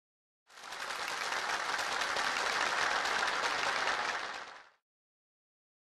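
Applause for about four seconds, fading in and out.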